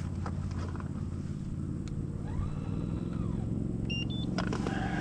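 Steady low drone of a boat motor running, with two short high tones about four seconds in.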